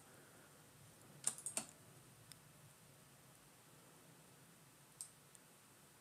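A few short computer mouse clicks over near silence: two close together about a second in, then two fainter single clicks, as files are selected for copying.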